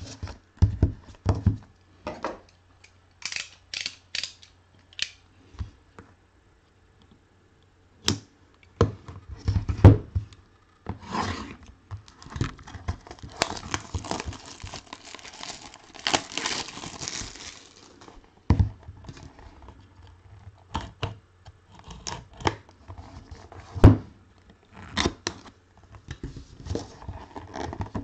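Plastic seal being cut and torn off a sealed cardboard box and crinkled, with a longer run of tearing about halfway through. Scattered knocks and taps of the box being handled on a table.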